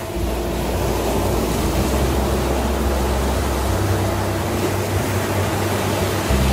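A steady rushing noise with low held droning tones underneath that change pitch every few seconds, near the start, about four seconds in and just before the end.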